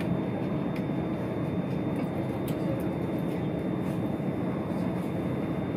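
c2c electric train running at speed, a steady rumble of wheels on rail heard inside the carriage, with a few faint clicks.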